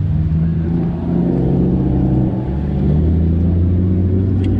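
A car engine running steadily with a low hum, its pitch shifting slightly about halfway through.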